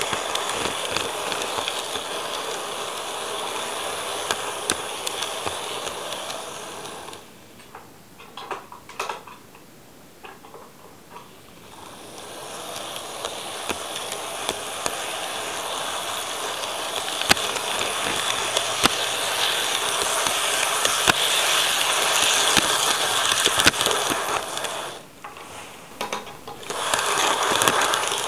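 KATO N-gauge model train running on its track: a steady whirring rattle with many light clicks of the wheels over rail joints. It goes much quieter for a few seconds about a quarter of the way in, and again briefly near the end.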